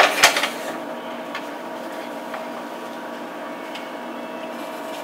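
A wooden spoon knocks twice against a metal pan while scooping out filling. Under it runs a steady mechanical hum, with a few faint clicks later.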